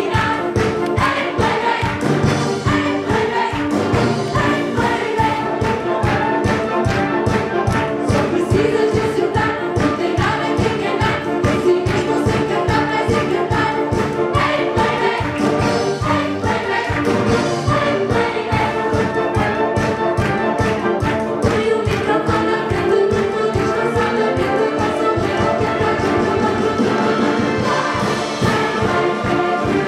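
Live song performance: a group of young voices singing together into microphones over band accompaniment, with a steady drum beat.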